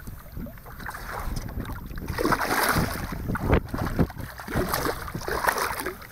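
Water splashing and sloshing against the side of an inflatable boat as a hooked fish thrashes at the surface, with wind on the microphone. One sharp knock about three and a half seconds in.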